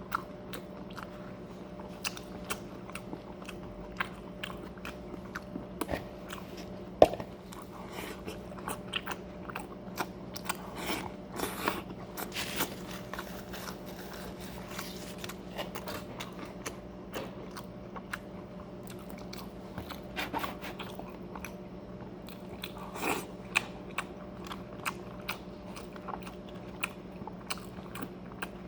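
Close-up chewing and crunching of a crisp tostada with ceviche, with many irregular sharp crunches and bites throughout. A steady low hum runs underneath.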